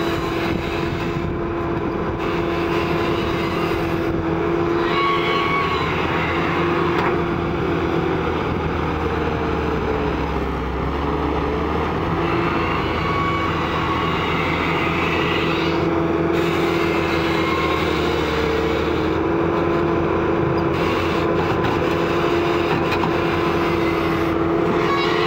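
Kobelco SK120 crawler excavator's diesel engine running steadily under hydraulic load while digging and swinging loads of earth, its pitch sagging slightly around the middle as the load comes on.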